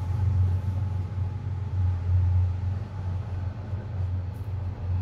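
A train passing, heard as a steady low rumble that swells and eases slightly.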